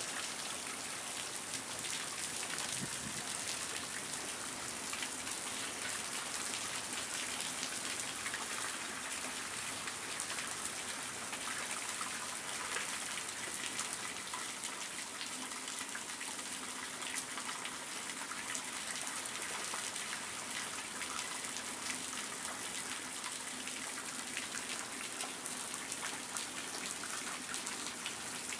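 Steady rain falling, an even hiss with scattered individual drops heard close by.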